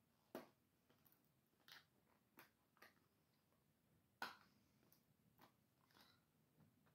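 Faint, scattered clicks and crinkles of packaging being handled as it is worked open, the loudest about four seconds in.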